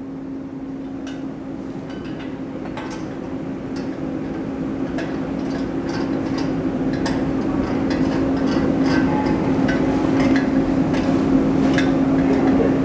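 Scattered light metallic clicks and clinks of a T-handle socket wrench working the exhaust nuts on a VW Type 4 engine, over a steady low hum that slowly grows louder.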